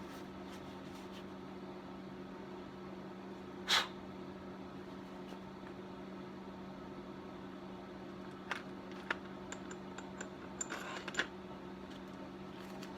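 Steady low electrical hum in a small shop, with a brief scrape about four seconds in and a few light clicks later on as small parts and tools are handled.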